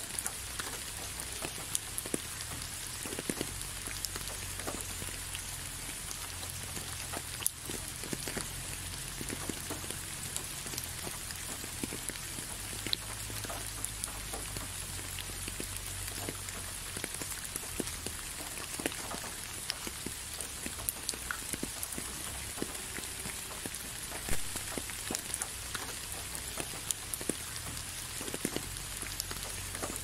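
Steady rain falling, an even hiss with many scattered louder drops tapping close by.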